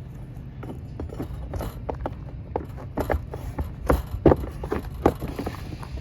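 Irregular knocks, taps and scrapes of hand work on rubber roof shingles, loudest about four seconds in, over a low steady rumble.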